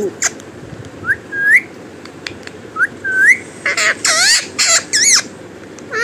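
Pet parrot calling: two short rising whistles, then a run of loud harsh squawks that bend up and down in pitch.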